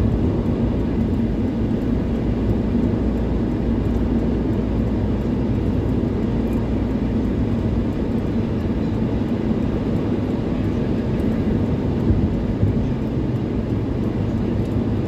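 Steady drone of a car driving at highway speed, heard from inside the cabin: engine and tyre noise with an even low hum.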